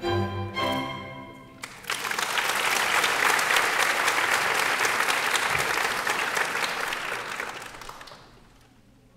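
Recorded string-led orchestral music plays its final notes, then about two seconds in an audience breaks into applause, which dies away after about six seconds.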